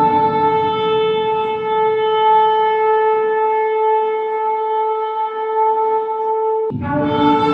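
A shofar blown in one long, steady blast that breaks off shortly before the end, then a second blast begins, starting low and jumping up to the same held note.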